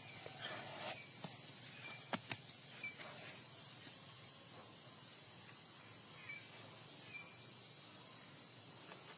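Steady high-pitched chorus of insects buzzing throughout, with two sharp clicks a little over two seconds in.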